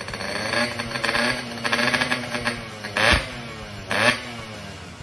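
Yamaha RX King's two-stroke single-cylinder engine running on its stand, then revved sharply twice in quick succession, about three and four seconds in.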